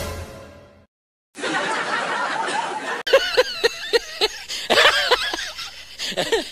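A struck sound-effect hit fading away, then laughter dubbed over the picture: a noisy stretch, then a run of short, rhythmic ha-ha bursts, several a second, to the end.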